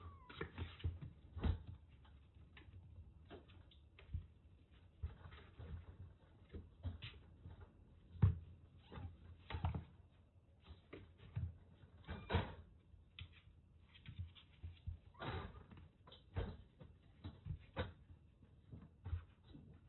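Kittens playing rough in a wire playpen: irregular soft thumps and knocks as they pounce, land on the mat and bump the wire panels, the loudest thump about eight seconds in.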